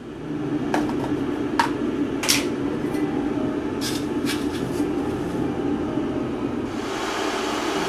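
A steady mechanical hum with a constant low tone, with several sharp clicks or clinks in the first few seconds. A hiss rises about seven seconds in and lasts past the end.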